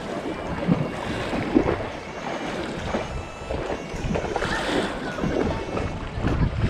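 Gusty wind buffeting the microphone over small waves washing and slapping against shoreline rocks.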